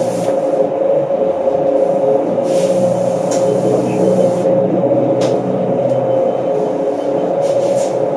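Cabin noise of a New Flyer C40LF CNG city bus running: a steady drone of engine and drivetrain with a constant whine. A hiss comes in about two and a half seconds in and lasts about two seconds, and there are a few sharp rattles near the end.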